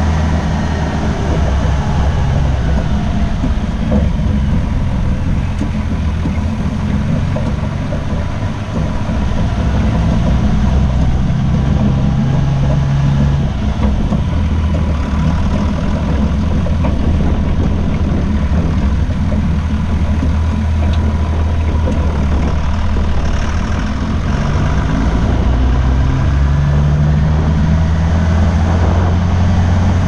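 A vehicle's engine running with tyre and road rumble as it drives over a dirt two-track and onto a gravel road. The sound is a steady low drone, and the engine note climbs a few seconds before the end as it picks up speed.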